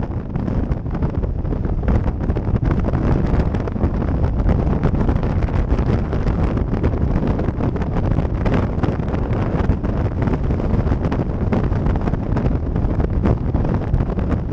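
Wind buffeting the microphone over the steady running of a Yamaha V-Star 1100 V-twin motorcycle cruising at an even speed across an open steel-grate bridge deck.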